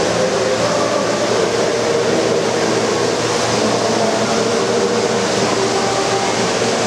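O-gauge model trains running on the layout: a steady rumble of metal wheels on track with a wavering electric-motor hum.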